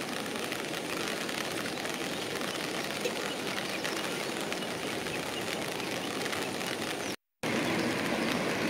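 Steady rain falling, a continuous hiss with many fine drop hits. It breaks off for a moment near the end and comes back a little louder.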